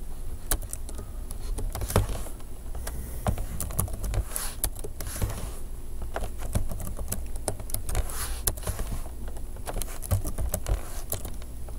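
Typing on a computer keyboard: scattered keystroke clicks in short runs with pauses between, over a low steady hum.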